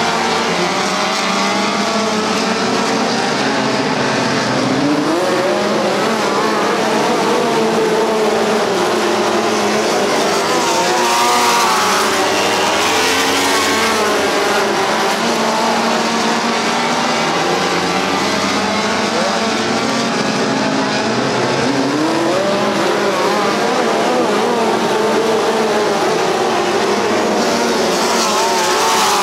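Several DII midget race cars running together on a dirt oval, their engine notes overlapping and repeatedly rising and falling in pitch as the cars accelerate and back off through the laps.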